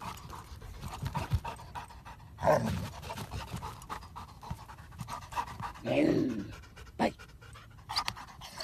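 Dog panting while it noses and pushes a plastic barrel across dirt, with scattered knocks and scrapes from the barrel.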